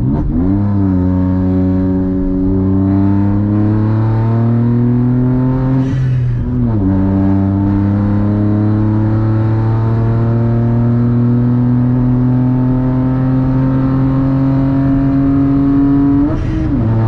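Stage 3-tuned Volkswagen Up TSI's turbocharged 1.0 three-cylinder engine pulling at full throttle, heard from inside the cabin, its drone rising steadily in pitch. The note drops briefly with a short hiss at an upshift about six seconds in and again near the end.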